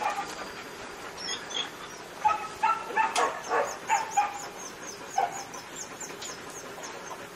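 A pack of dogs crowding around a person, giving a burst of short yips and whines from about two to four seconds in. A high chirping repeats about four times a second through the second half.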